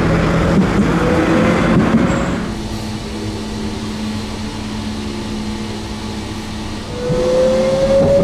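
Electric trams running: first a low-floor Pesa Swing tram passing, with rumbling wheel and motor noise. Then, heard from inside a tram, a quieter steady hum, and about seven seconds in the rising whine of the traction motors as the tram accelerates.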